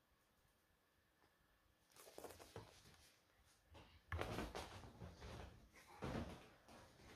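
A cat pouncing and scrambling on a bed: bedding rustles and soft thumps start about two seconds in, with the loudest thumps about four and six seconds in.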